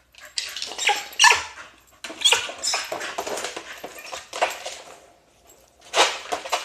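A dog making a run of short, noisy barks and vocal noises, with a lull about five seconds in and more near the end.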